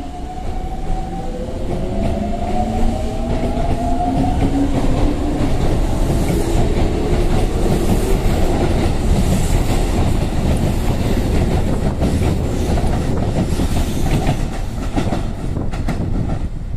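Keikyu 600 series electric train pulling out of a station: a whine from its traction motors that rises in pitch over the first few seconds as it gathers speed, then a loud rumble and clacking of the wheels on the rails as the cars roll past.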